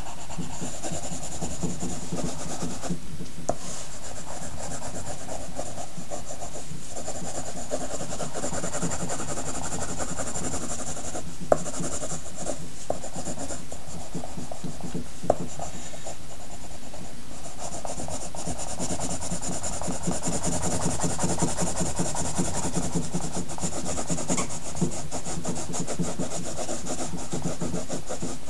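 Pencil scratching on paper in quick, continuous shading strokes over a faint steady hum, with a couple of sharp ticks in the middle.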